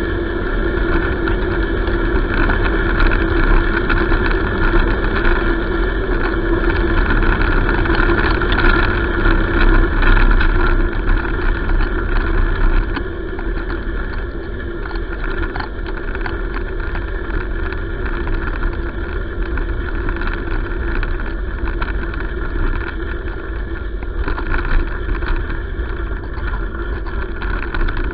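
Steady rolling noise from the wheels of a dog-drawn rig on a road surface, picked up through the handlebar mount, with a low rumble and a faint steady hum. It gets a little quieter about halfway through.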